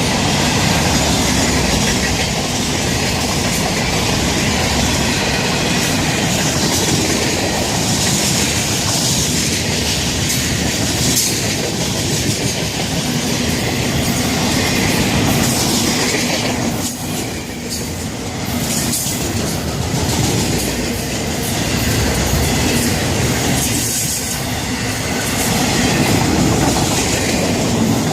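Freight cars of a Florida East Coast Railway train rolling past, wheels clacking over rail joints with a steady rumbling roar of steel on rail. The noise eases briefly about 17 seconds in, then builds again.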